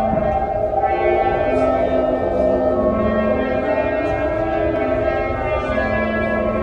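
Several whirly tubes (corrugated plastic tubes swung overhead) sounding overlapping sustained whistling tones, over low held notes from a concert band.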